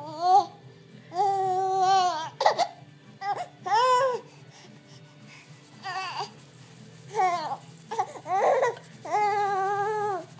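A young baby cooing and squealing happily: a string of high-pitched vocal sounds, two held for about a second and the rest short and chuckle-like.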